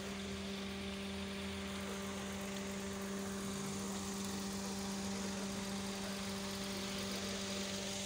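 Steady mechanical hum holding one constant low pitch, over a faint even hiss.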